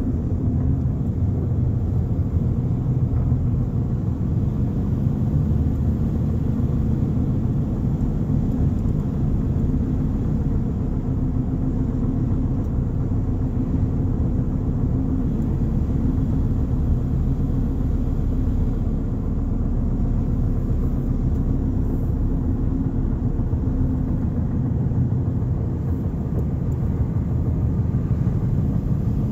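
Steady low rumble of a car's engine and tyres on asphalt, heard from inside the cabin while cruising along a highway.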